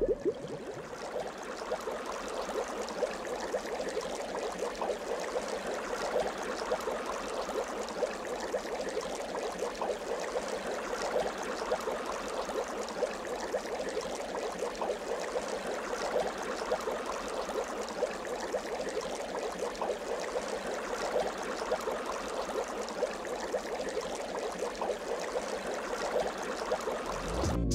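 Water bubbling and fizzing steadily, a dense crackle of tiny bubbles.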